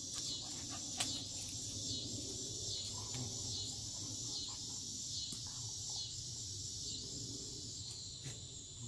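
Outdoor insect chorus: a steady high-pitched buzzing that pulses roughly once or twice a second, with faint low rustling underneath and a short click about a second in.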